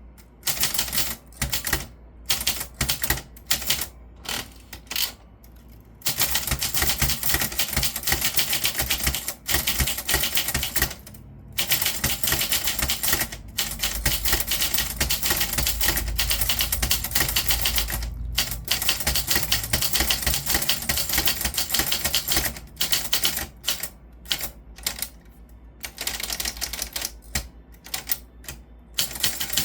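Typewriter keys struck in fast runs of clicks, broken by a few short pauses.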